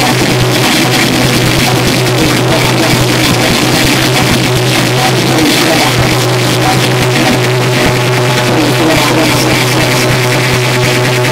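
Loud distorted electronic music played live on hardware mixers and synth gear, a dense wash of noise over a steady low hum.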